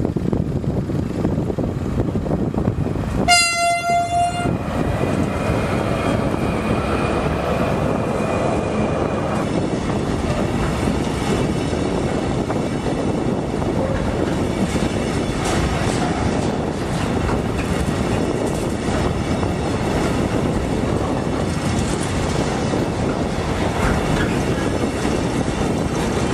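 A long freight train of gas tank wagons rolling past at close range, a steady rumble of wheels and bogies with scattered clicks over the rail joints. About three seconds in, the diesel locomotive's horn sounds one short blast, about a second long.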